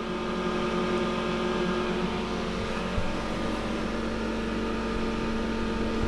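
Steady whirring hum of a small 12 V fan blowing air through a homemade mushroom-room humidifier, with several fixed tones held steady.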